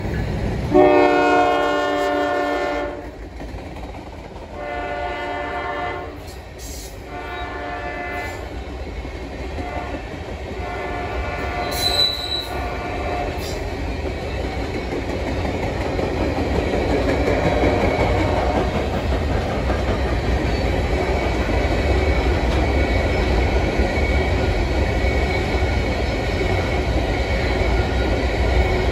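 Freight locomotive's air horn sounding a series of blasts for a grade crossing as the train approaches, the first blast the longest. Then a rising, steady rumble with wheels clacking over the rail joints as covered hopper cars roll past.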